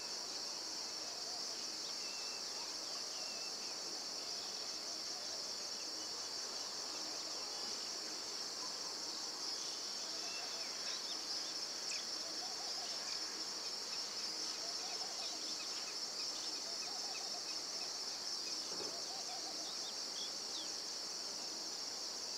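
Steady high-pitched insect chorus, a continuous shrill drone with a fine pulsing texture, with faint scattered bird chirps beneath it.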